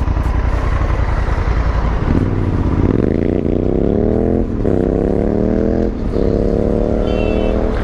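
Motorcycle engine accelerating through the gears: from about two seconds in its pitch climbs, drops at an upshift, climbs again, drops at a second upshift and climbs once more. Wind rushes over the microphone before the engine note takes over.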